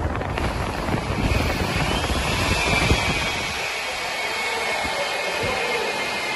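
Heavy-duty lathe running: a steady mechanical drone with a low rumble that eases about three and a half seconds in, and a faint high whine from about two seconds in.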